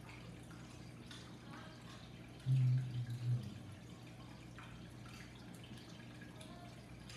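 Close-up eating sounds: soft chewing and wet lip smacks, with a brief low hum from the eater's voice about two and a half seconds in, broken into a few short parts.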